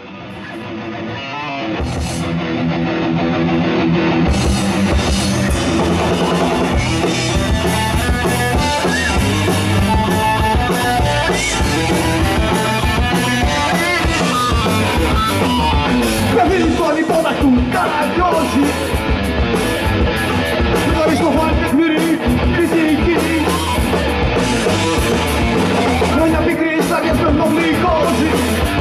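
Live rock band playing with distorted electric guitars, bass guitar and a drum kit. The sound swells up over the first few seconds, and the drums' cymbals come in about four seconds in, after which the full band plays loudly.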